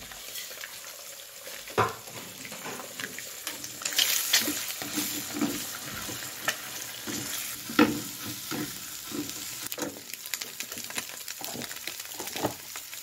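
Eggs sizzling in a non-stick frying pan while a plastic slotted spatula stirs and scrambles them, scraping and tapping against the pan. Two louder knocks stand out, about two seconds in and about eight seconds in.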